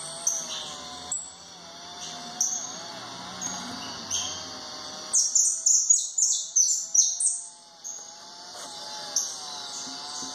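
Caged jilguero (saffron finch) singing in short high chirps and trills, breaking into a louder run of rapid notes about halfway through that lasts some two seconds.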